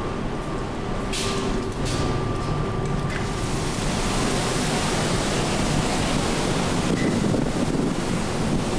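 Ferry's machinery hum with a couple of knocks, then from about three seconds in wind rushing over the microphone on the open deck, over the ship's steady rumble and wash.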